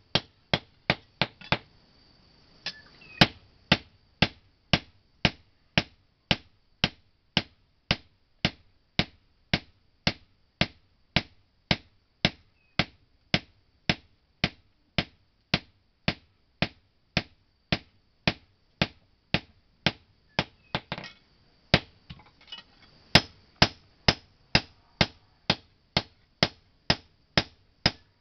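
Blacksmith's hand hammer beating a sickle blade on an anvil in a steady rhythm of about two ringing blows a second, with a short pause about three-quarters of the way through.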